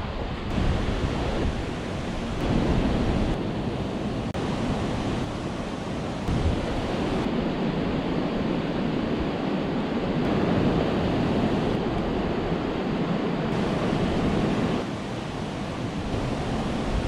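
Water rushing steadily over a river weir, a continuous even noise of tumbling white water.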